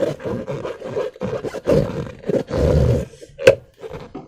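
Slime being squeezed and worked by hand, making irregular wet squelches and crackles, with one longer squelch about two and a half seconds in and a sharp snap about a second later.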